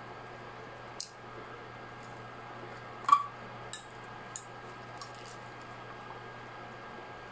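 A dish of leafy greens being handled: a few short sharp clicks and knocks, the loudest about three seconds in, over a steady low hum.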